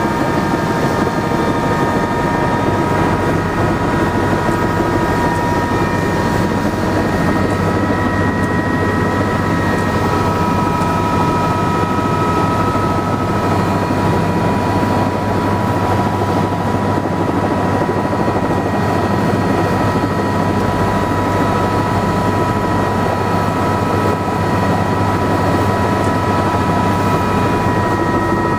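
Helicopter's engine and rotor running steadily, heard from inside the cabin while it sits on the pad, a constant whine over an even rumble.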